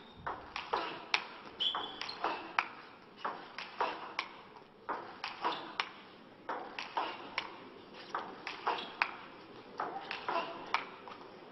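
Table tennis ball going back and forth in a long rally: sharp clicks of the ball off the bats and the table, about two a second and never stopping, over a faint murmur of voices in the hall.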